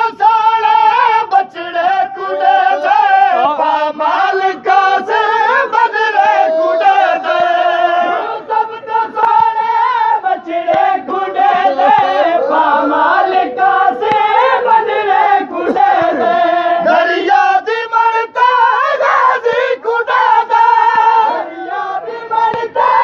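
Voices chanting a noha, a Shia lament, in chorus, with a sustained melodic line that bends and holds.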